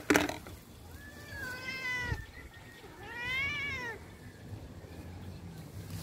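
White cat meowing twice: a level call about a second long, then a second call that rises and falls. A brief loud knock comes right at the start.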